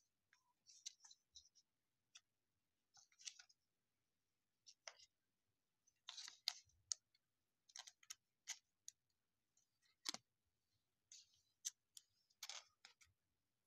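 Faint, scattered clicks and short rustles of trading cards being handled and slid into a soft plastic sleeve, at irregular intervals.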